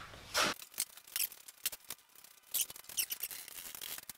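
Bar clamps being fitted around a glued door panel: a quick, irregular run of light clicks and taps, with one heavier knock about half a second in.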